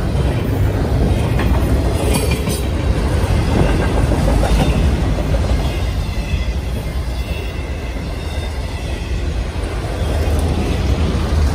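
Freight train rolling past close by, first double-stack container well cars and then autorack cars: a steady, loud rumble and rattle of steel wheels on the rails.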